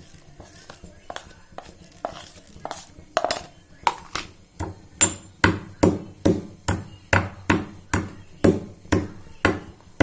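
Cumin seeds and black peppercorns being pounded together to crush them. A few light taps at first, then from about four and a half seconds in, steady sharp strikes about two to three a second.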